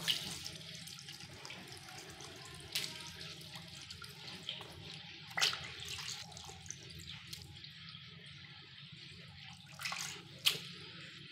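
Faint water trickling and dripping from freshly washed raw chicken pieces draining in a plastic colander, with a few short knocks.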